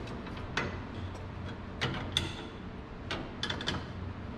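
Scattered metallic clicks and taps of a hand tool working a bolt on a steel crossmember, a few with a short ring, including a quick cluster about three seconds in, over a steady low hum.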